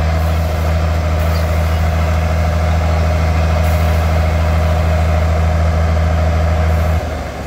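Tractor engine idling steadily with a deep, even hum. It drops away sharply about seven seconds in, leaving a quieter hum.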